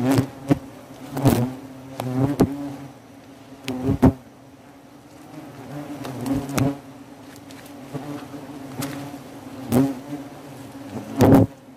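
A swarm of wasps buzzing around their disturbed nest while the comb is being taken. Under a steady drone, single wasps fly close past about seven times, each a brief, louder buzz that rises and falls in pitch.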